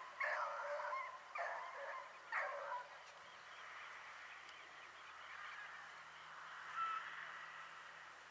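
Pack of rabbit-hunting hounds baying on the chase: three loud, drawn-out bays in the first three seconds, then fainter, blended baying from the pack.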